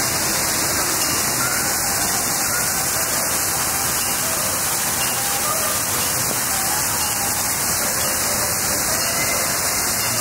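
Fountain water splashing in a steady rushing hiss, with faint voices of passers-by mixed in.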